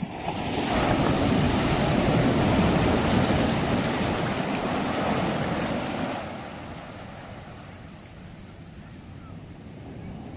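Sea waves breaking on the shore: one wave surges up in the first second, washes loudly for several seconds, then fades away about six seconds in.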